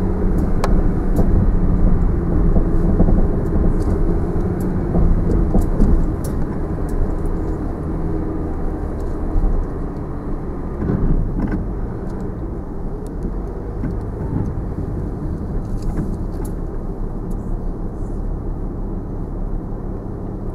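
Land Rover Discovery 4 driving slowly over a rutted dirt forest track, heard from inside the cabin: the engine runs low under a steady rumble of tyres and body, with a few short knocks and rattles from the bumps. It is a little louder in the first few seconds, then settles.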